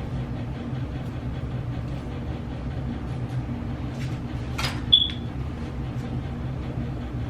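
A steady low mechanical hum throughout, with a brief rush of noise about four and a half seconds in, then a short high beep.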